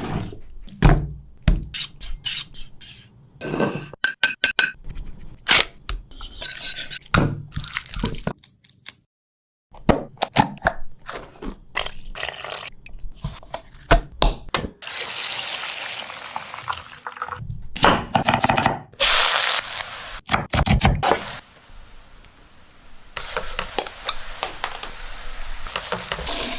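Kitchen cooking sounds: utensils clinking and scraping against dishes and pans in a string of separate knocks, with stretches of steady hissing, pouring-like noise.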